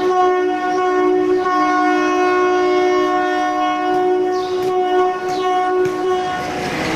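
Indian Railways locomotive horn held in one long two-tone blast, sounded for an alarm-chain pull, stopping about six and a half seconds in. A few brief high squeaks come near the end.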